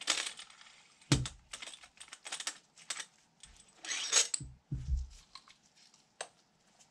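Metal clicks, clinks and knocks of a threaded T-handle bearing press being taken apart and its threaded rod drawn out of a bicycle front hub, with the tool parts set down. There is a sharp knock about a second in, a scraping clatter around four seconds, dull thumps just after, and a single click near the end.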